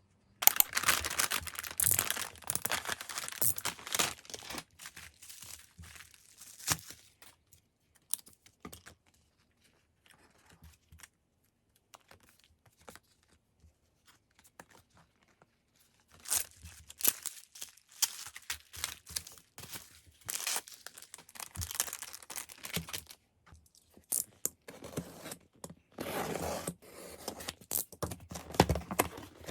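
Parcel packaging being torn open and crinkled by hand, in two busy spells with a stretch of only small handling clicks between them.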